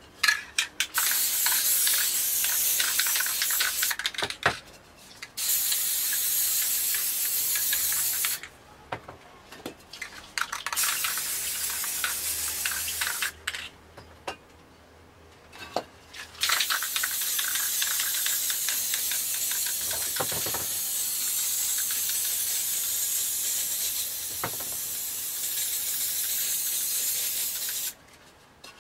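Aerosol spray paint cans hissing in four long bursts, the last lasting about eleven seconds, with short pauses between them that hold a few clicks and knocks.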